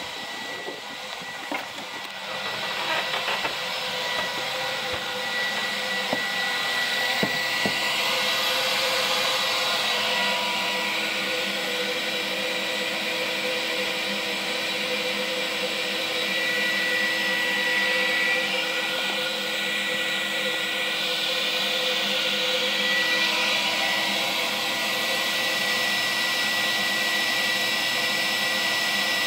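Air blower of an Air-Dock inflatable boat lift running steadily with a whining hiss, pumping air into the airbags to lift the boat out of the water. It grows louder over the first several seconds, then holds steady.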